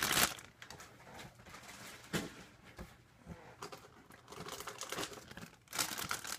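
Clear plastic bags holding model-kit runners crinkling and rustling as they are handled, in short bursts at the start, in the middle and near the end, with a light knock about two seconds in.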